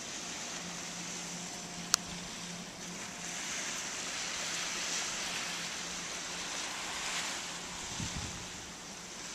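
Gentle surf washing onto a sandy beach under wind, a steady hiss that swells a little in the middle. There is a single sharp click about two seconds in, and some low wind buffeting on the microphone near the end.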